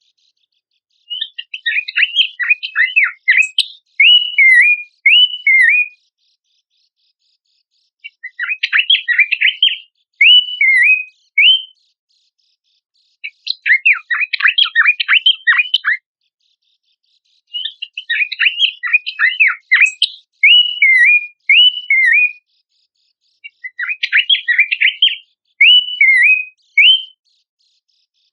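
Abbott's babbler singing in five bouts with short pauses between them. Each bout is a quick jumble of sharp chattering notes that ends in two to four short, clear, hooked whistles.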